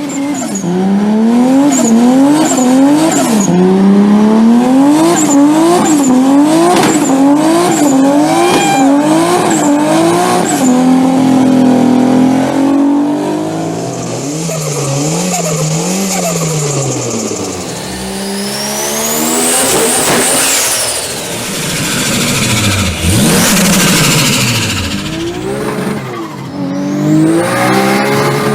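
Turbocharged car engines revved hard in quick repeated blips, each lift-off followed by a short high turbo flutter, the compressor surge chatter of a setup without a blow-off valve. Later comes a high turbo whistle that rises and falls, and a car going past.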